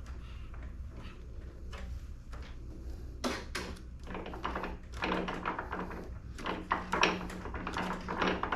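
An RC plane's inflatable rubber tundra tires hitting a tabletop and bouncing as the plane is dropped, giving a series of soft thuds and knocks from about three seconds in, thickest in the second half. A steady low hum runs underneath.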